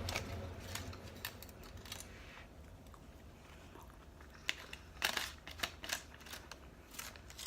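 Close-up eating sounds of someone chewing and biting into a gordita: scattered sharp mouth clicks and crunches, a cluster of louder ones about two-thirds of the way through, over a low steady hum.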